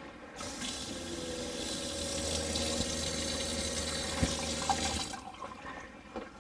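Sink faucet turned on and running water into the drain for about four and a half seconds, then shut off, with a low steady hum underneath while it runs. This is the first test of the newly plumbed sink draining to the tank.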